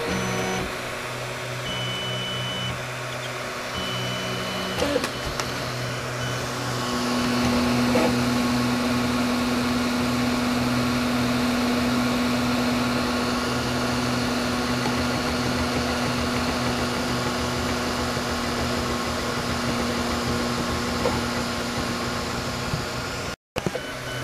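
Flsun i3 3D printer running mid-print: its stepper motors whine in steady tones that shift in pitch in steps as the print head moves, over the hiss of its cooling fan. From about seven seconds in one steady tone holds for most of the rest, and the sound drops out for a moment near the end.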